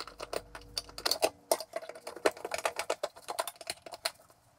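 Light irregular clicking and tapping, several a second, as a plastic thermostat base plate is fitted and screwed to a metal 4x4 electrical box with a hand screwdriver.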